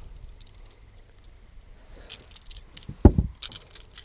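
Small metallic clicks and rattles of pliers and a lure's hooks being worked loose from a fish in a landing net, with a dull thump about three seconds in.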